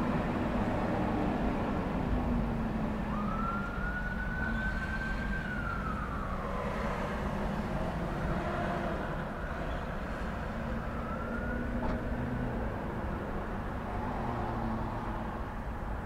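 Steady rumble of cars and trucks in road traffic. A siren wails over it: it rises about three seconds in, holds, and falls away by about seven seconds, then starts to rise again briefly around eleven seconds.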